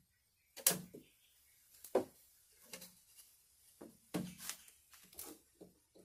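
Flathead screwdriver prying at a riding mower's ignition switch in its plastic dash panel, working the switch's retaining clip loose. It makes a series of irregular sharp clicks and scrapes, about one a second, the loudest under a second in.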